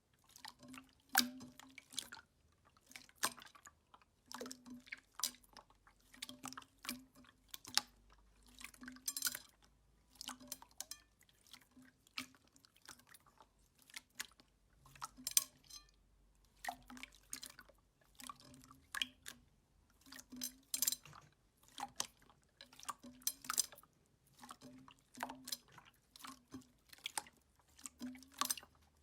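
Slime being squeezed and stretched by hand: a continuous run of short wet clicks and sticky pops, a few every second.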